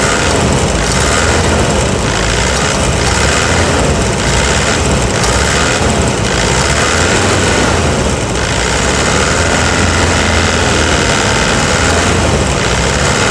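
Toyota Hilux D-4D four-cylinder diesel engine idling steadily, heard close up in the open engine bay. All four injectors have just had new nozzle tips fitted to fix a stuck injector that made it knock loudly.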